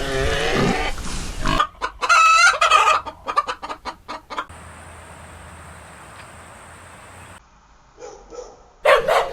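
A cow mooing ends, then a chicken calls about two seconds in and clucks rapidly. A dog starts barking near the end.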